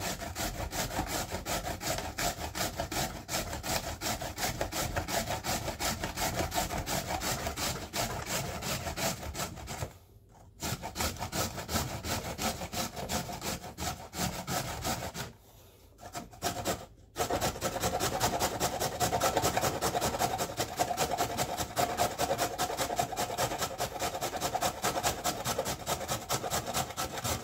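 Carrot being grated by hand on a metal grater: quick, repeated rasping strokes, with brief pauses about ten seconds in and twice around sixteen seconds. The strokes are louder in the last third, as the carrot is grated down to a short stub.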